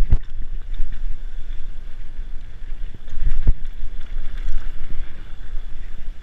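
Mountain bike descending a bumpy dirt trail at speed: wind rushing over the microphone with the rumble and rattle of the bike over the ground. Two sharp thumps from hitting bumps, one right at the start and one about three and a half seconds in.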